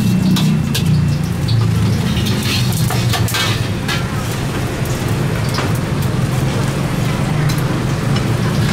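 Clinks, taps and scrapes of metal cooking utensils against a wok and bowls at a street food stall, over a steady low rumble.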